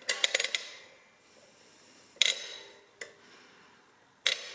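Number wheels of a 1947 Högfors mechanical adding machine being pulled down by finger to enter digits: a quick run of ratchet clicks at the start, then single sharp metallic clacks about two seconds in and near the end. The machine is loud.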